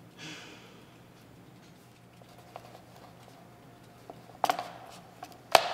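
Two sharp knocks on a wooden desk about a second apart near the end, the second louder, after a few faint ticks and a brief soft hiss at the start, over a quiet room's low hum.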